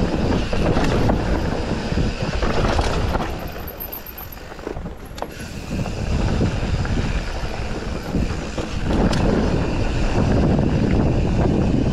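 Mountain bike riding a dirt forest trail: tyre noise on the dirt and wind rushing over the chest-mounted camera's microphone. It drops off as the bike slows about four seconds in, then builds again near the end as the bike picks up speed.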